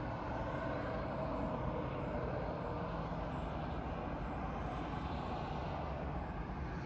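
Delta QFR1212GHE 120 mm 12 V cooling fans running steadily with an even whoosh of moving air, turned down toward the lowest speed of their PWM controller.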